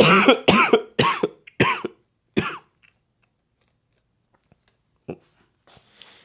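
A man coughing hard in a fit of about six coughs over the first two and a half seconds, then stopping. A faint click follows a few seconds later.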